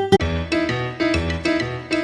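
Upbeat background music with a piano-like keyboard melody over a steady bouncing beat, starting abruptly at the very beginning.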